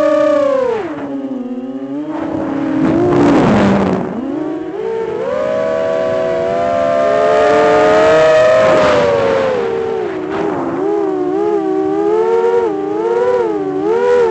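Brushless motors and propellers of a Storm Loki X4 Mini 4-inch FPV racing quadcopter whining, heard from its onboard camera. The pitch drops as the throttle is cut about a second in, then comes a stretch of rushing air noise. The whine climbs back and holds, and in the last few seconds it wavers quickly up and down with rapid throttle changes.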